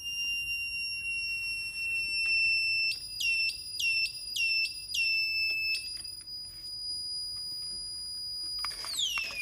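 A high electronic tone, like an alarm or buzzer, holding a steady pitch. About three seconds in it flips quickly up and down between two pitches about five times, then holds the higher pitch and slides down near the end.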